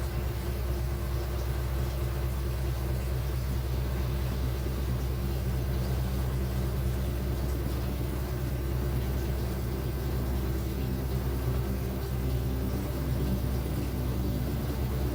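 LG 8.0 kg washing machine running with a steady low hum and rumble that does not pause.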